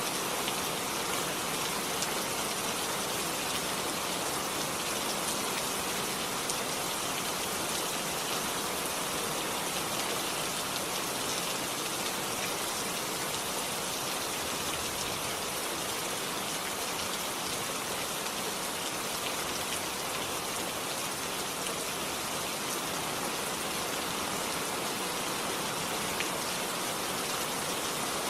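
Steady rainfall, a dense even hiss of rain with scattered drops ticking on a surface.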